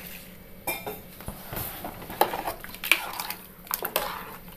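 A long steel spoon stirring thick green gram curry in a metal pressure cooker, clinking and scraping against the pot's sides at irregular intervals.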